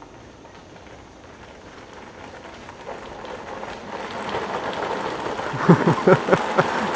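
Hard plastic wheels of a child's pedal go-kart rolling over a gravel and dirt path, a noisy hiss that grows steadily louder as the kart comes closer. Near the end, a person's voice in several short bursts.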